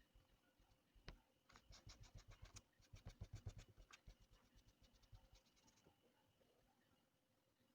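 Chalk scratching across a drawing surface in rapid back-and-forth strokes, about eight a second, for roughly four seconds, after a single light tap about a second in.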